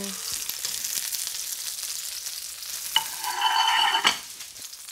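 Breaded cutlets shallow-frying in hot oil in a 12-inch skillet, a steady crackling sizzle. About three seconds in, a brief ringing scrape sounds for about a second over the sizzle.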